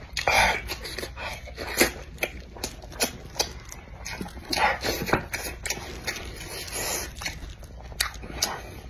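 Close-miked chewing and lip-smacking on braised chicken drumstick meat: irregular wet smacks and clicks of the mouth, a few louder ones near the start.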